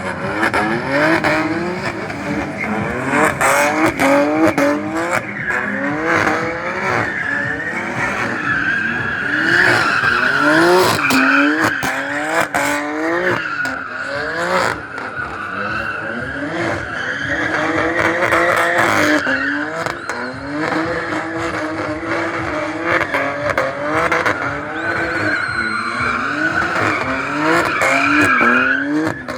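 BMW F82 M4's tuned twin-turbo straight-six revving up and dropping back again and again as the car spins, its rear tyres squealing continuously through the drift.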